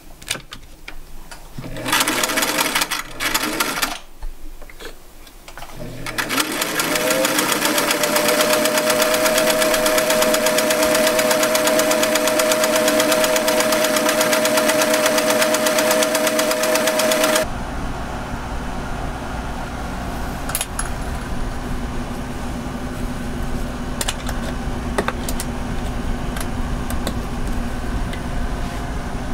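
Electric sewing machine stitching fabric: a few short runs, then a long steady run whose motor whine rises in pitch and levels off. About seventeen seconds in it cuts to a steady low hum with a few light clicks.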